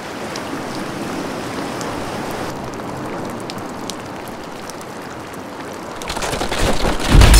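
Steady rain: a dense, even hiss with scattered drop ticks. A louder, deeper noise swells up over the last second or so.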